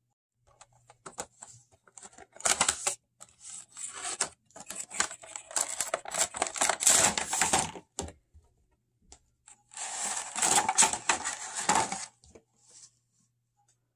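Unboxing handling noise from a Funko Pop window box: the cardboard flap opening and the clear plastic insert sliding out and being pulled apart, rustling and crinkling in irregular bursts with small clicks and scrapes between. The longest stretch of rustling is in the middle, and another comes near the end as the figure is freed from the plastic.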